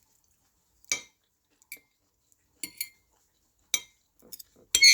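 Metal cutlery clinking against a dish while eating: a handful of sharp, separate clinks with a brief ring, the loudest cluster near the end.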